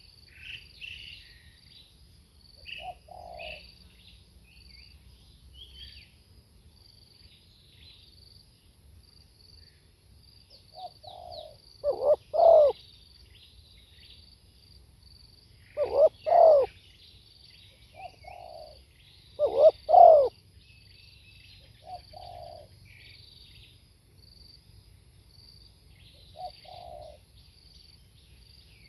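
Spotted dove cooing: soft coos here and there, and three loud multi-note coo phrases about four seconds apart in the middle. Small birds chirp high and thin throughout.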